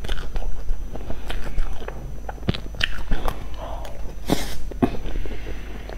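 Close-up mouth sounds of a person eating soft strawberry cream cake: wet lip smacks and chewing with scattered small clicks, and a louder smack a little over four seconds in as a forkful goes into the mouth.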